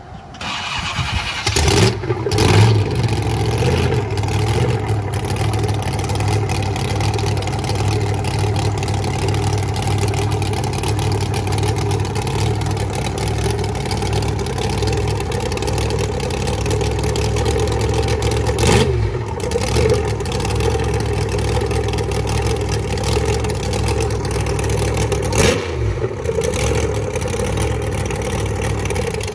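A 1,500-horsepower competition monster truck engine starts up about two seconds in and then runs steadily at a loud, deep idle. There are a couple of brief louder blips later on.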